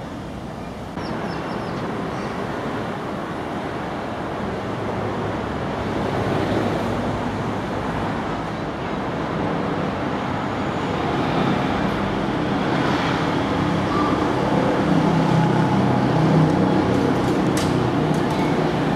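Steady drone of busy road traffic, tyre and engine noise mixed together, getting louder about a second in and again later on. A heavy vehicle's low engine hum stands out over it toward the end.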